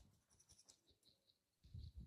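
Near silence with faint, scattered soft clicks and rustles from hands working on skin and hair during a massage. Soft low thuds begin near the end.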